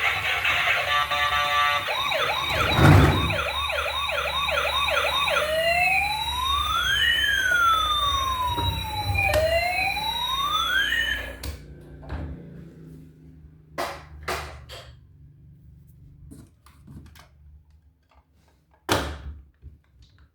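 Electronic toy emergency-vehicle siren: a fast yelp of rapid repeated rising sweeps, then two slow wails rising and falling. It stops about halfway through and gives way to scattered sharp clicks and knocks.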